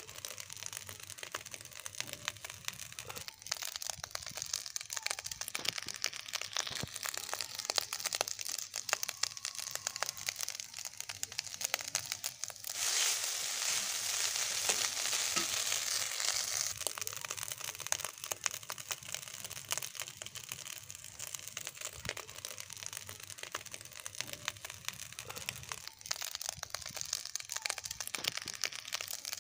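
Leftover rice frying in an iron karahi while a spatula scrapes and turns it: a dense crackling scrape with many small clicks, growing louder and hissier for a few seconds about halfway through.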